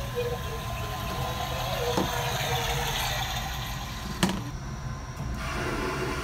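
A steady low rumble of background noise in a small toilet stall, with a short clack about two seconds in as the flap of a wall-mounted sanitary bin is opened by hand. A second knock follows about four seconds in.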